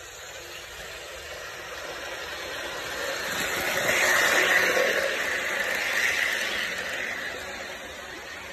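Bachmann model train running along the track through a truss bridge. It grows louder as it approaches, is loudest as the locomotive passes close by about four seconds in, then fades as it moves away.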